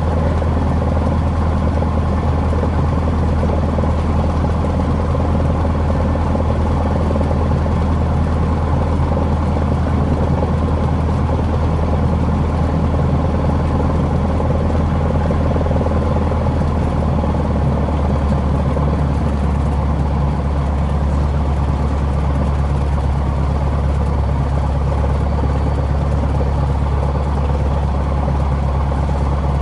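Cessna 150H's four-cylinder Continental O-200 engine and propeller running with a steady low drone as the plane taxis, heard from inside the small cabin.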